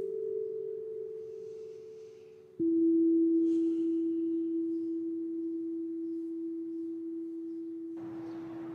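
Soundtrack music of slow, bell-like tones: a held note fading away, then a lower, louder note struck about two and a half seconds in that rings on and slowly fades. Near the end, street noise comes in.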